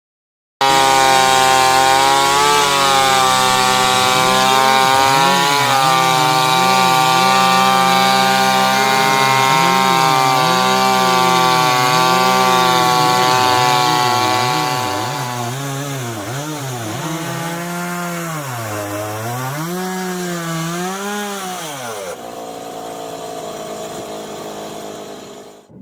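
Mini chainsaw running and cutting through wood, its pitch repeatedly dipping and recovering as the chain takes load. It drops in level about two-thirds of the way through, and a quieter, steadier sound replaces it near the end.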